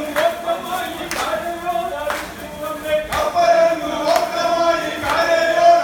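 A group of men singing a Kerala vallamkali boat song (vanchipattu) together, with a sharp beat struck about once a second.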